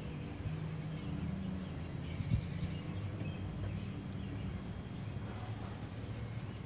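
Outdoor background: a steady low hum, with faint bird chirps and a single short knock about two seconds in.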